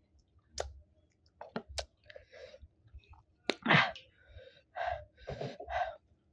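Close-miked mouth sounds of a person eating chicken curry and rice by hand: wet lip smacks and clicks while chewing. One louder, sharp breathy sound falls in pitch just before four seconds in.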